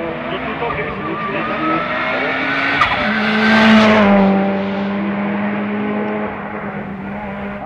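Hill-climb race car at full throttle, its engine note climbing as it accelerates up the road. There is one sharp crack near three seconds in. It is loudest as it passes about four seconds in, then the pitch drops and the engine runs on as the car draws away.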